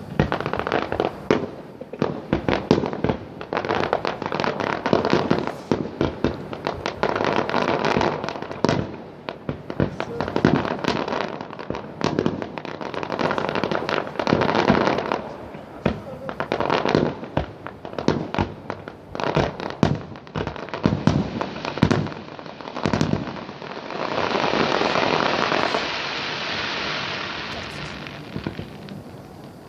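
Fireworks and firecrackers going off in rapid, overlapping succession: many sharp bangs and crackles. About 24 seconds in, a denser crackling hiss runs for a few seconds, then fades.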